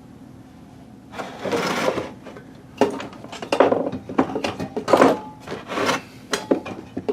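Small parts of a router's on/off switch being handled as grease is dabbed onto the switch's clicker: a longer scuffing rub, then a run of short scrapes and light clicks.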